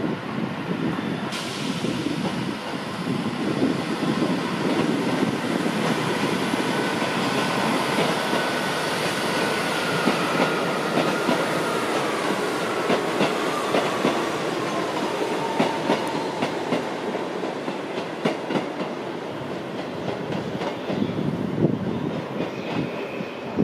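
East Midlands Railway Class 158 diesel multiple unit running past, its wheels clicking rhythmically over rail joints and pointwork. A high whine falls in pitch midway through.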